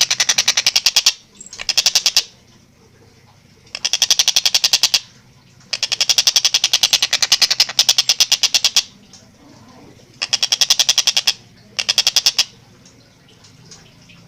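A tengkek buto kingfisher giving a rapid chattering call: six bursts of fast, evenly repeated high notes, some under a second and the longest about three seconds, with short pauses between.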